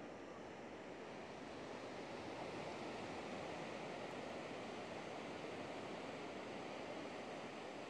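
Pacific Ocean surf breaking, heard as a steady wash of noise that grows a little louder over the first couple of seconds.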